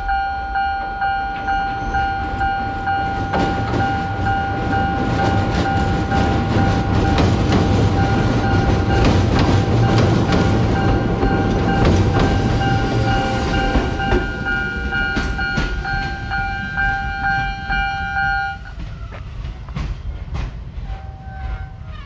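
A Japanese level-crossing warning bell rings in a steady repeating pattern while an orange Ichibata Electric Railway electric train rolls across a steel girder bridge beside the crossing. The wheels rumble and clack over the rail joints, loudest in the middle. The crossing bell stops about eighteen seconds in.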